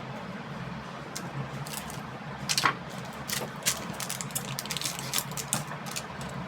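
Irregular clicks and clinks of small metal parts being handled, with one louder scraping squeak, falling in pitch, about two and a half seconds in, over a steady low hum.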